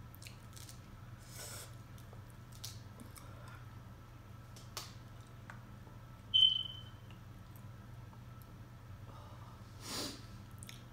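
Close-up eating sounds: soft wet smacks and squishes of chewing boiled seafood and potatoes, over a steady low hum. One sharp, brief high squeak about six and a half seconds in is the loudest sound.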